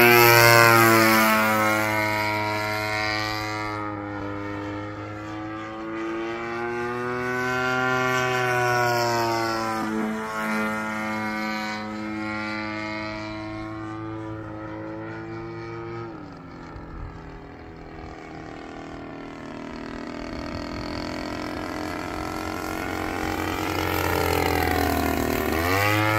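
Radio-controlled Factor 3D aerobatic model plane flying, its motor and propeller giving a steady buzzing tone that falls in pitch as it passes just after the start. About two-thirds of the way through the pitch and level drop as it throttles back, then it climbs again and makes another close, loud pass near the end with a rising-then-falling pitch.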